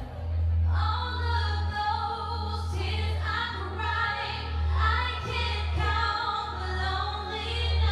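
A woman singing an R&B song in sung phrases over amplified backing music with a heavy, steady bass.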